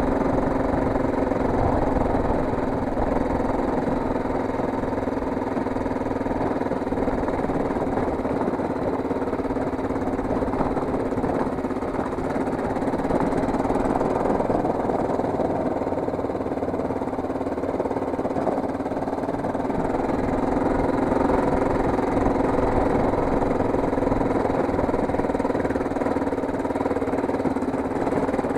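Enduro motorcycle engine running steadily while the bike rides up a rocky dirt track, heard from a camera mounted on the motorcycle.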